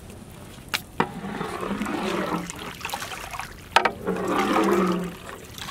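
A long metal ladle stirring thin soup in a large metal cooking pot, the liquid sloshing and swishing in two spells. There are sharp knocks of the ladle on the pot: two close together about a second in, and one nearer the end.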